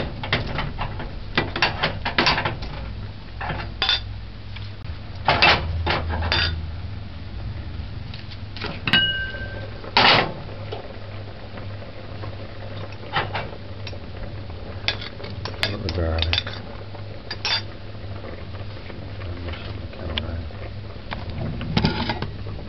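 Metal fork clinking and scraping on a ceramic plate as garlic cloves are mashed, with scattered knocks and clinks of utensils and an aluminium pot.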